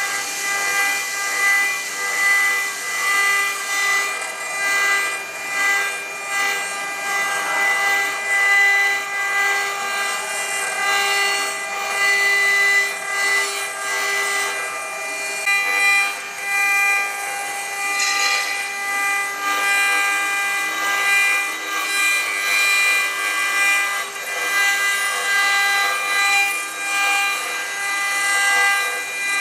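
CNC router spindle milling a relief into a rotating metal cylinder: a steady whine of several high tones from the cutter over a hiss, the pitches shifting about halfway through.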